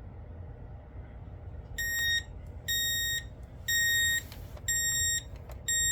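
KMC 803 alarm clock's alarm going off. It gives a high electronic beep about half a second long, repeated once a second, starting about two seconds in.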